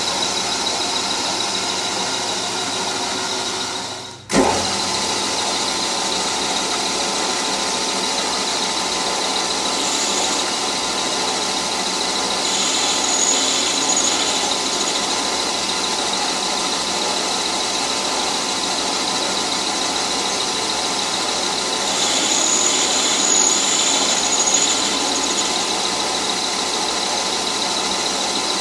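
Metal lathe running steadily with its three-jaw chuck spinning, a steady motor whine with a faint high squeal that comes in a few times while the tool is fed along the work on the compound slide. The sound drops out briefly about four seconds in.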